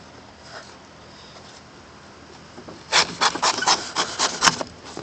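Cardboard shipping box being cut open with a knife: a quick run of scratchy strokes, about six a second, starting about three seconds in and lasting a second and a half, ending with a sharp click.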